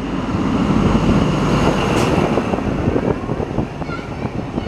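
Diesel XPT passenger train pulling into the platform at close range: the power car passes, then the carriages roll by with a dense low rumble and many quick clicks of wheels on the rails. One sharper click stands out about two seconds in.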